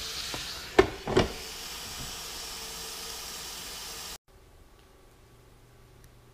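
Fish fillets sizzling on an electric contact grill, a steady hiss, with two sharp knocks about a second in as the grill's lid is shut. The sizzle cuts off suddenly just after four seconds, leaving faint room tone.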